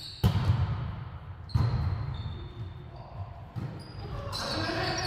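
A volleyball being struck three times during a rally, each a sharp slap that echoes around a gymnasium, the hits about a second and a half, then two seconds, apart. Near the end, short high squeaks of sneakers on the hardwood court.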